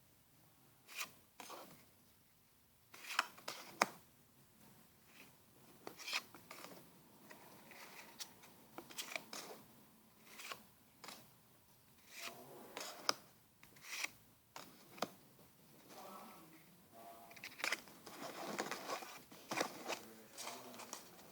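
Pokémon booster pack being opened by hand: a series of irregular crinkles, cuts and tears of the foil wrapper, with rustling as the cards are handled.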